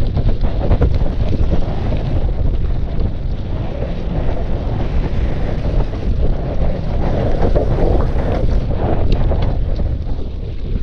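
Heavy wind buffeting on the microphone of a camera carried on a mountain bike riding fast, with tyre roar and frequent short knocks and rattles from the bike over the rough trail.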